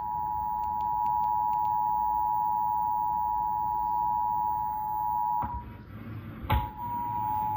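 Emergency Alert System attention signal: a steady two-tone alert. It cuts out for about a second roughly five seconds in, a click sounds, and the tone comes back.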